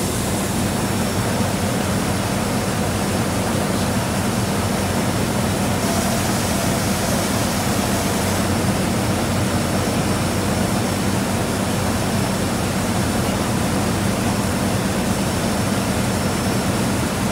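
Rice combine harvester running steadily: a constant low engine hum under an even wash of machine noise.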